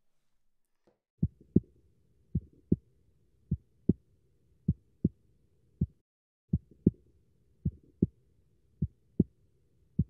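Fingers tapping on the back of a hand that holds a microphone against its palm, mimicking a normal heart's S1 and S2. The result is paired low 'lub-dub' thumps, about one pair a second, with a short break near the middle.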